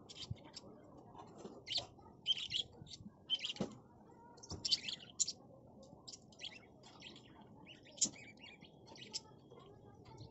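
Small birds chirping: many short, high chirps coming irregularly several times a second, over faint background hum. There are a couple of soft knocks in the middle.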